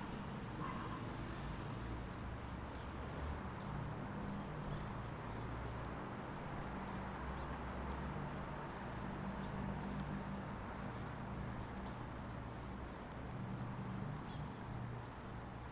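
A vehicle running with a steady low hum that holds without change, over the general noise of a railway station, with a few faint clicks.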